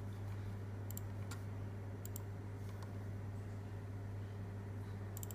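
A few faint computer mouse clicks, some in quick pairs, over a steady low hum.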